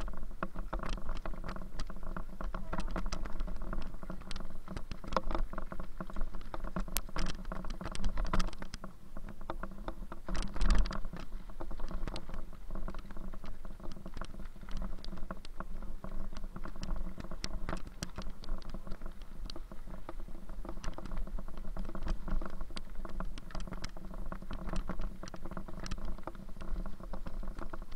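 Bicycle rattling and clicking as it is ridden: a dense run of irregular small clicks over a steady low hum, with a louder cluster of clicks about a third of the way through.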